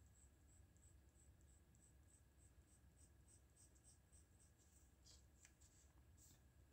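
Faint graphite pencil strokes scratching on drawing paper, short light strokes a few times a second, with a few longer, stronger strokes near the end.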